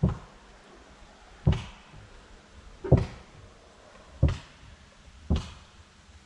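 Slow footsteps, five dull thumps about one every second and a half.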